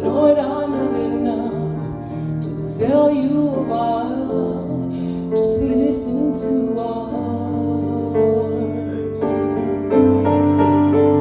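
Slow piano music with held chords changing every few seconds, with a little singing over it about three seconds in.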